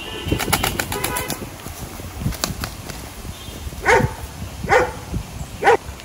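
A quick burst of pigeon wing flapping about half a second in. In the second half a dog barks three times, short sharp barks about a second apart.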